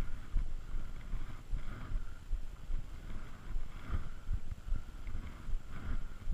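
Wind buffeting the microphone in uneven low gusts, with soft rustling every second or two as the walker moves through dry grass.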